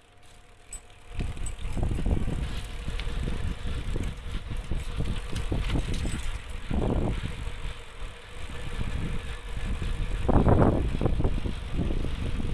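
Bicycles riding on a paved path, heard from a moving bike: a low, fluctuating rumble of wind on the microphone and tyre noise. It starts about a second in and surges louder a couple of times, most strongly in the last few seconds.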